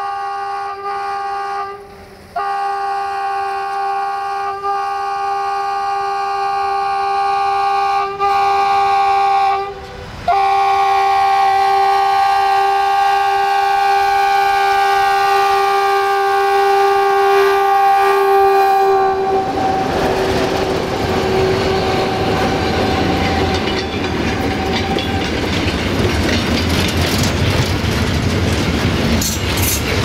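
LDE2100 (060-DA) diesel-electric locomotive sounding its horn in long sustained blasts with a few brief breaks for about nineteen seconds, the pitch dropping slightly as it passes. Then the horn stops and the rumble and clickety-clack of freight wagons rolling by take over.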